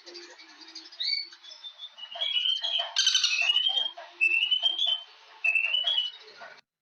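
Bird song: repeated short chirping phrases that rise in pitch, with a brief rapid rattle of clicks about three seconds in. The sound cuts off suddenly near the end.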